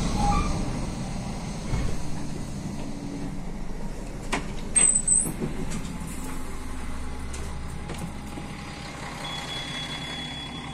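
Regionova diesel railcar standing at a stop with its engine giving a low steady hum, while the passenger door opens with a few sharp clicks and a short high beep about four to five seconds in. A steady high tone starts near the end.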